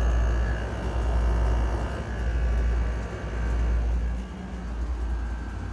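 Small window air conditioners running on low: a steady fan and compressor hum with water splashing inside, the condensate being thrown against the condenser coil. The level eases off a little about four seconds in.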